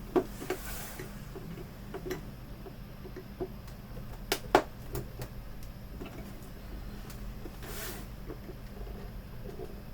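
Scattered plastic clicks, taps and scrapes of a knife blade and pry tool working into the seam of an LCD monitor's plastic bezel to unclip it, with two sharp clicks about four and a half seconds in and a short scrape near the eight-second mark.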